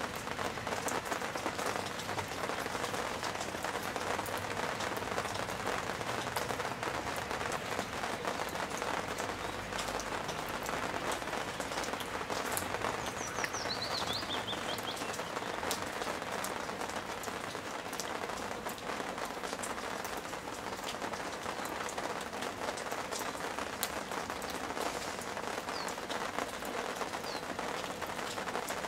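Steady rain falling, an even hiss with many small drop ticks. A bird chirps briefly about 13 to 14 seconds in.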